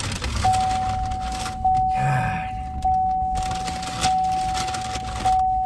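A car's warning chime dinging, one steady mid-pitched tone repeating about every 1.2 seconds, five times.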